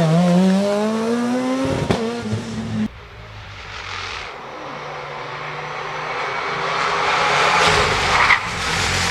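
Rally car engine revving, its pitch rising, cut off abruptly about three seconds in; then another rally car's engine and tyres come in faint and grow steadily louder as it approaches, with a brief sharp peak near the end.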